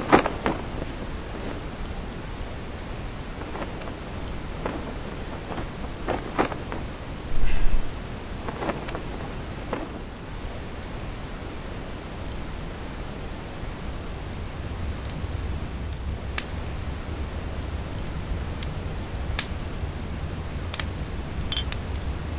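A steady, high-pitched insect chorus, with scattered clicks and a low rumble underneath; a brief low thump about seven seconds in.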